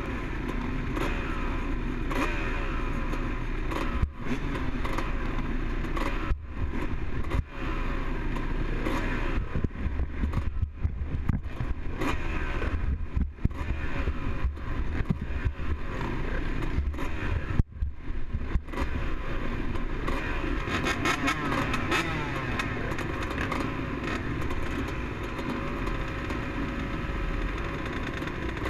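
Several motocross dirt bike engines idling and being revved on the starting line, the nearest one loudest, with rising and falling revs from time to time.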